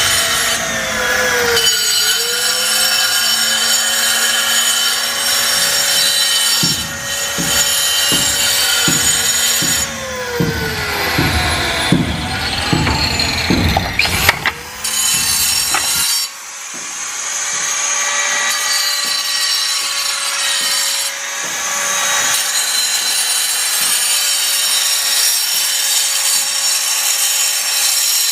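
Angle grinder cutting slate stone: a steady high motor whine whose pitch sags and recovers as the disc is pressed into the stone, about two seconds in and again in the middle. The middle also holds a run of low thumps.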